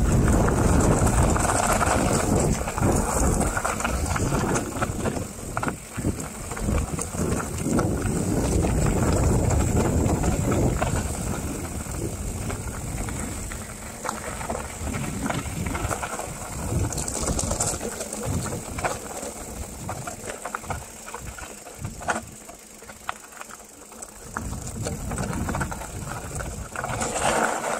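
Mountain bike descending a gravel forest track, heard as wind buffeting the microphone mixed with tyres on gravel and the bike rattling over bumps. It is loudest for the first ten seconds or so, then eases off as the bike slows.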